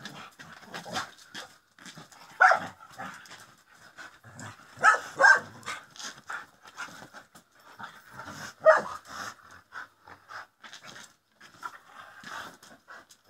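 A dog panting hard while it jumps and tugs at a toy, with four short, sharp barks: one about two and a half seconds in, two close together near the five-second mark, and one near nine seconds.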